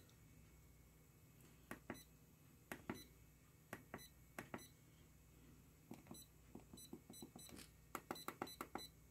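Faint clicking of the FNIRSI DSO-TC2 tester's push-buttons as they are pressed one after another, with a short high beep from the tester on many of the presses. The presses are spread out at first, then come in a quick run near the end.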